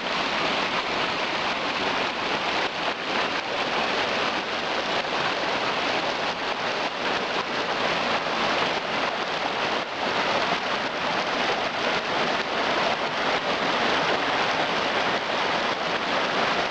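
Steady rushing of water in a mountain stream, an even splashing noise that neither rises nor falls.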